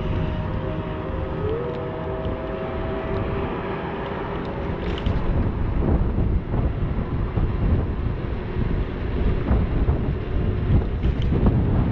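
Inokim Quick 4 electric scooter riding at about 22–25 km/h: wind rushing over the handlebar-mounted action camera and tyres rolling on pavement. A faint motor whine in the first few seconds steps up in pitch, then fades. The rush gets louder about five seconds in, with a few light knocks from bumps.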